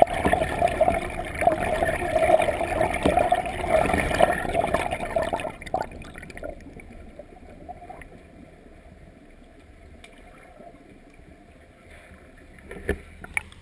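Muffled rushing underwater water noise through a GoPro's waterproof housing, loud for the first five and a half seconds, then dropping to a low hush, with two faint knocks near the end.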